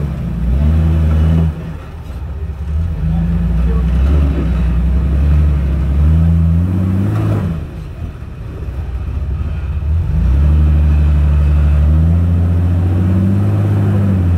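Jeep Wrangler LJ rock crawler's engine revving hard in repeated bursts of throttle as it works up a steep rock ledge under load. Each burst rises in pitch and falls back, and the longest comes near the end.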